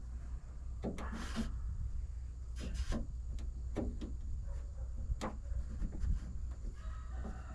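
Backup camera being pressed and worked into its mount in a pickup's tailgate: a few sharp plastic clicks and knocks with short scraping rubs, over a steady low hum.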